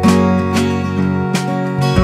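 Background music of an acoustic guitar strumming chords, with a strum about every half second.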